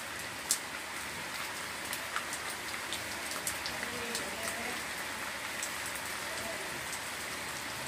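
Steady, even background hiss with scattered faint ticks and no speech.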